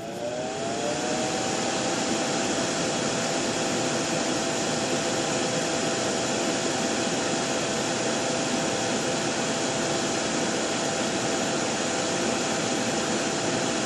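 Soldering fume extractor fan spinning up to speed in the first second, then running steadily with a rushing air sound and a steady hum.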